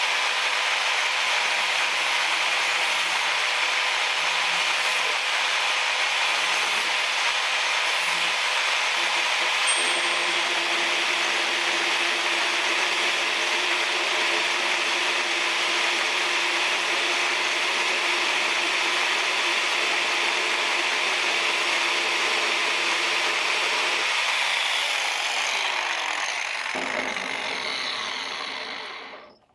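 Hilti AG 450-7 corded angle grinder with a cutoff wheel running steadily as it trims carbon arrow shafts to length. Near the end it is switched off and winds down over a few seconds to a stop.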